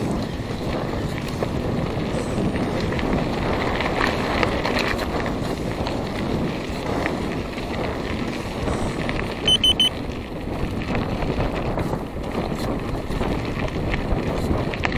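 Wind buffeting a handlebar-mounted camera's microphone over the rumble and rattle of a mountain bike rolling along a dirt track. About halfway through, four quick high beeps sound in a short run.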